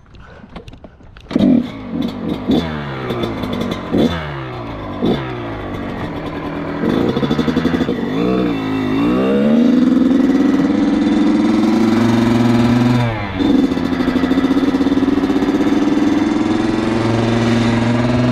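Dirt bike engine catching about a second in, once the forgotten fuel has been turned on, then blipped several times, each rev falling away. From about ten seconds it pulls away and runs at a steady speed, with a brief dip near two-thirds through as it shifts gear.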